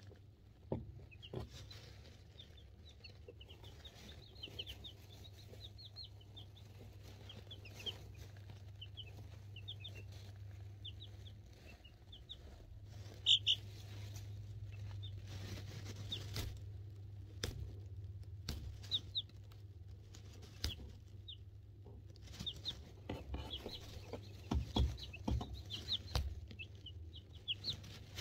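Two-week-old chicks peeping: a scattering of short, high cheeps throughout, over a low steady hum. Close knocks and scuffs in the shavings come more often and louder near the end.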